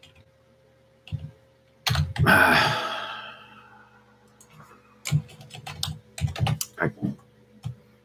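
Typing on a computer keyboard: a few key clicks about one and two seconds in, then an uneven run of clicks from about five to eight seconds in. About two seconds in, a loud rush of noise fades away over a second and a half.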